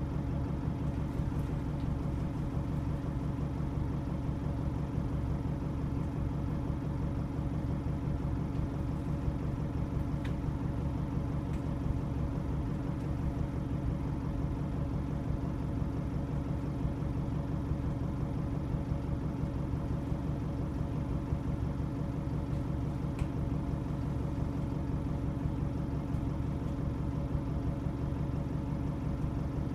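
Single-deck diesel bus engine running steadily, heard from inside the passenger saloon as an even low drone. A few faint ticks sound now and then.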